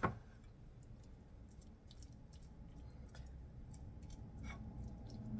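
A sharp tap at the start, then faint scattered clicks and taps of a serving utensil on a plate, one a little louder near the end, as a crepe is filled and folded.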